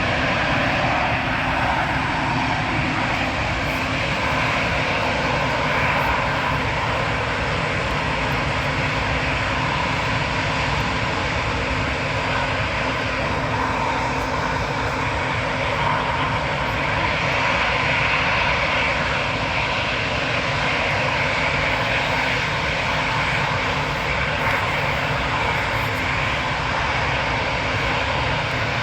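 Pratt & Whitney PW1500G geared turbofan engines of an Airbus A220 running steadily: a loud, even rush of jet noise with a faint steady hum underneath that does not rise or fall.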